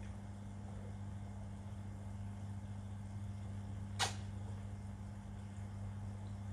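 Koi feeding at the pond surface: one sharp sucking pop about four seconds in and another at the very end, over a steady low hum.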